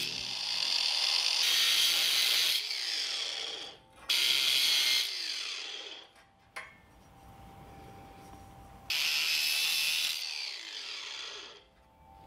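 Angle grinder cutting slits into the end of a small steel pipe in three bursts, each followed by the motor winding down with a falling whine.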